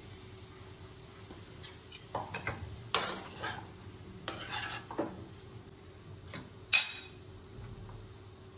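Slotted steel spatula stirring and scraping potato-and-pea filling in a nonstick kadai: a run of scrapes and knocks starting about two seconds in, then one sharp ringing clank of the spatula on the pan near the end, the loudest sound.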